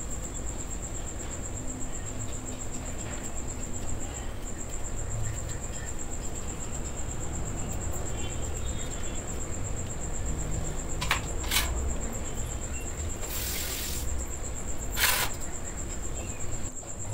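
A tomato being cut by hand with a knife over a steel bowl, with a few sharp clicks after the middle and a short hiss near the end. Under it run a steady low rumble and a continuous high, fast-pulsing tone.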